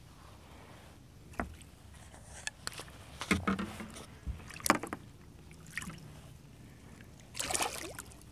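Hooked catfish thrashing and splashing at the surface beside a kayak, in several short bursts with a longer one near the end.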